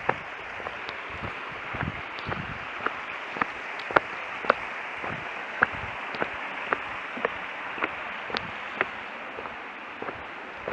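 Footsteps on a paved path at a walking pace of about two a second, each a short sharp tap, over the steady rush of a mountain stream.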